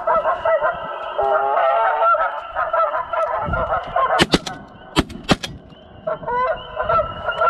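Geese honking repeatedly, then about four seconds in a quick run of four sharp shotgun shots within about a second, after which the honking starts again.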